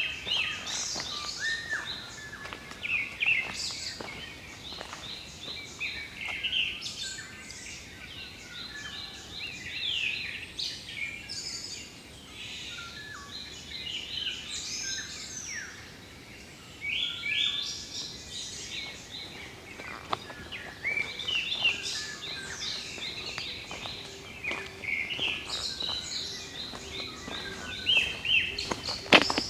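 Several wild songbirds calling and singing at once: a dense, overlapping run of quick chirps, short whistled sweeps and trills that carries on without a break.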